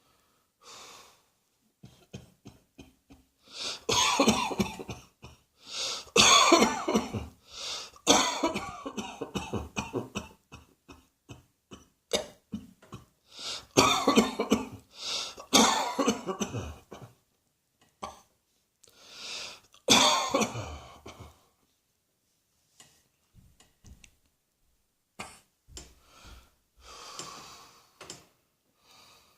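A person coughing in repeated fits of hard coughs, with throat clearing and breaths between them. The loudest fits come from about four seconds in to about seventeen, with one more near twenty seconds, after which the sounds trail off into quieter short breaths and coughs.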